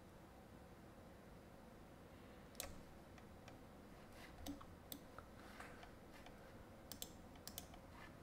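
Near-silent room tone with faint, irregular clicks of a computer mouse, starting a couple of seconds in and coming now and then in quick pairs.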